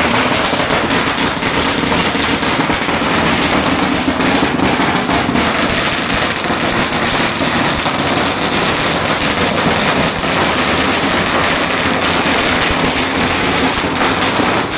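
A long string of firecrackers going off in a dense, unbroken crackle of rapid bangs, loud throughout.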